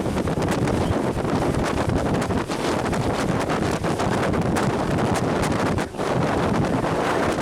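Strong storm wind near a tornado blasting the microphone: a loud, dense, steady rush with many sharp ticks and cracks through it, easing for a moment about six seconds in.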